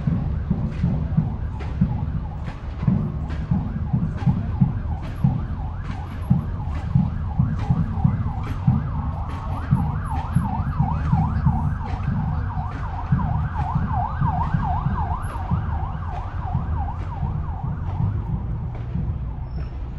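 An emergency-vehicle siren yelping, its pitch sweeping quickly up and down, through the middle of the stretch. Underneath, a marching band's drum keeps an even beat of about two to three strokes a second.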